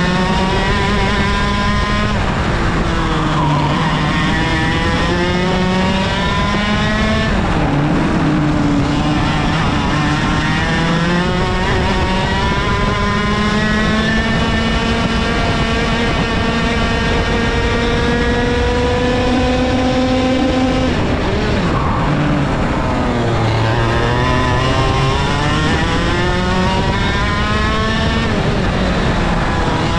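IAME KA100 100cc two-stroke kart engine at racing speed. Its pitch climbs through each straight, the longest pull lasting several seconds, and drops sharply three times as the kart slows for corners.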